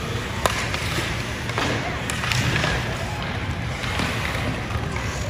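Ice hockey game sounds in a rink: a steady hiss of skates and arena rumble, with a few sharp knocks from sticks and puck.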